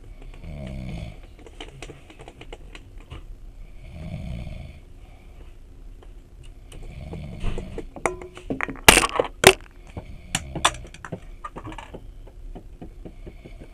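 A person snoring, slow breaths about every three and a half seconds, with scattered clicks and a brief cluster of loud sharp knocks just past the middle.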